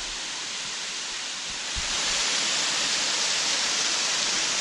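Waterfall rushing: a steady roar of falling water that grows louder about two seconds in.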